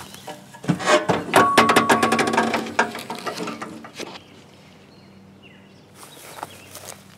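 Metal clanking and a fast rattle, with a brief squeal in the middle, as the mower's tilt-up body is raised off the engine compartment; after about four seconds it goes quiet except for birds chirping and one click.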